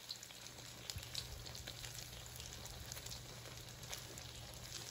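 Oil sizzling and crackling in a wok as pieces of food shallow-fry, with a steady low hum underneath.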